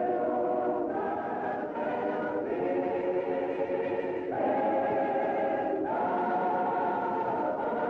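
A choir singing slow, sustained chords as film score music, the harmony shifting every second or two.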